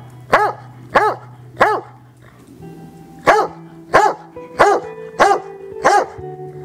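Old English Sheepdog barking, single loud barks about two-thirds of a second apart: three, a pause of over a second, then five more, over background music.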